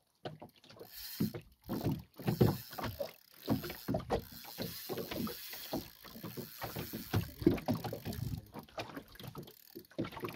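Water slapping and lapping against the hull of a small open boat at sea in irregular splashes.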